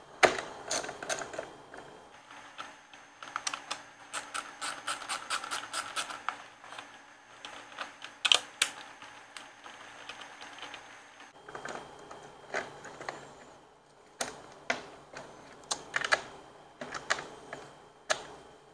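Socket ratchet clicking in quick, even runs of about six clicks a second as bolts are backed out, then scattered lighter clicks and knocks from the tool and the loosened plastic tail parts being handled.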